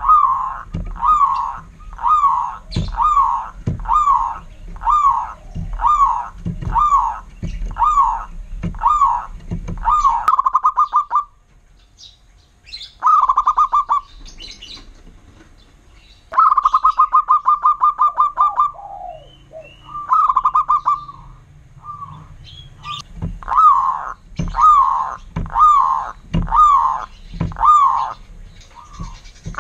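Zebra dove (perkutut) cooing loudly. Single coos come about once a second, then the bird breaks into several fast rolling runs of coos in the middle, then single coos again near the end.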